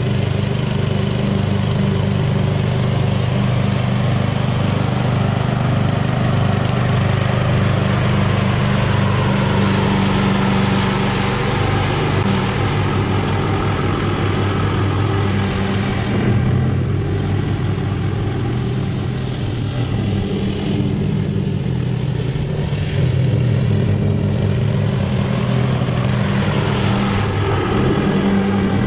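The 12-horsepower flathead engine of a repowered Craftsman LT1000 lawn tractor running steadily as the tractor drives and mows grass. Its higher tones dip on and off in the second half.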